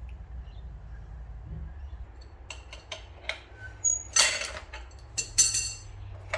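Metal clinks and clanks of tools and strut parts being handled, starting about two and a half seconds in, with two louder clattering ones about four and five and a half seconds in, over a steady low hum.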